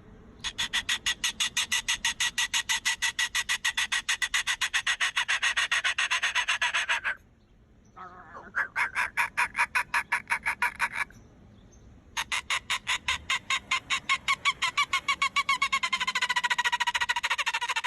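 A pet parrot making a fast rattling, pulsing call of about seven or eight pulses a second, in three long runs with short breaks between them. In the last run the pitch slides down.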